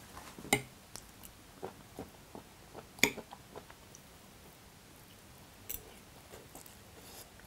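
A person eating salad with a fork: a few scattered light clicks of the fork against the plate, the sharpest about three seconds in, with quiet chewing.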